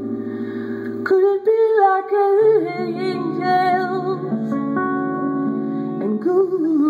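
A slow song with a woman singing over guitar, played through the car's Rockford Fosgate component speakers and subwoofers and heard inside the cabin; a held, wavering sung line comes in about a second in.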